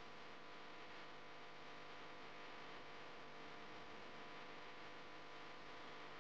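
Near silence: a faint, steady hiss with a low electrical hum, the recording's background noise.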